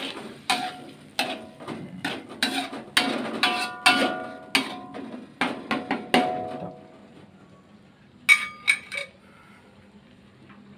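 A cooking utensil stirring in a pan, striking its side again and again with short ringing clanks for about six seconds. A pause follows, then three quick clinks.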